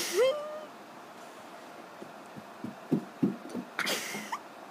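A person's voice making wordless sounds: a sharp breathy burst that slides up into a squeal at the start, then a run of short low grunting pulses and another breathy burst with a brief rising squeak about four seconds in.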